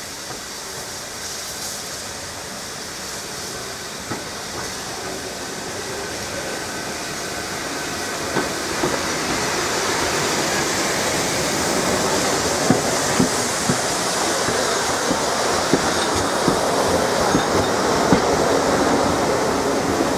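Steam-hauled passenger train running past, growing louder as it nears, with steam hissing and the coaches' wheels clicking over the rail joints, the clicks starting about eight seconds in.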